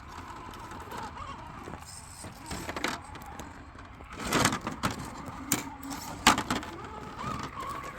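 Axial SCX10.2 RC rock crawler with a brushless Spectrum Fusion motor crawling over the course: a faint motor whine, with knocking and crunching of the tires and chassis against the terrain. The knocking is loudest about four to five seconds in, and there is one sharp knock a little after six seconds.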